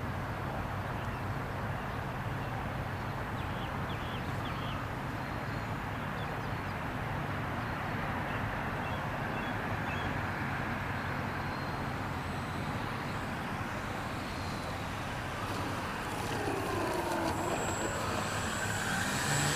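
Steady wind rumble on the microphone, with the faint motor whine of a radio-controlled model aeroplane. Near the end the whine grows a little louder and rises and falls in pitch as the plane comes in low to land.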